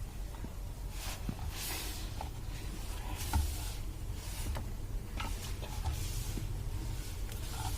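Knife cutting through rolled parotta dough: several brief, soft scraping strokes and small taps over a steady low hum.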